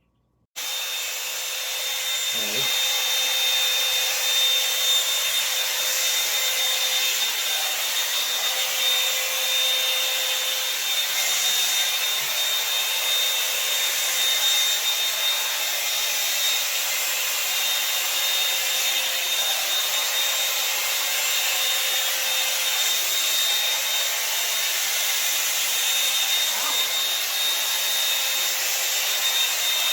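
Hot Tools 24K Gold One-Step hair dryer and volumizer brush switched on about half a second in, then running steadily: a rush of blowing air with a steady high whine.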